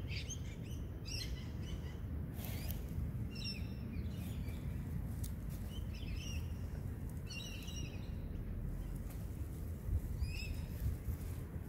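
Small birds chirping in short, high calls every second or few, over a steady low outdoor rumble.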